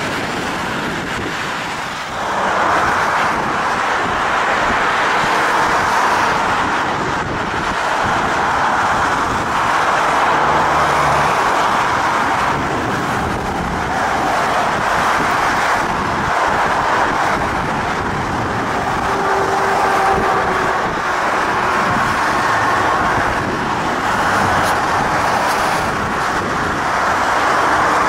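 Jet airliner engines running with a steady, loud rushing noise. In the first two seconds it comes from a twin-jet climbing out after takeoff; then, after a jump in level, it comes from an Airbus A300 rolling on the runway.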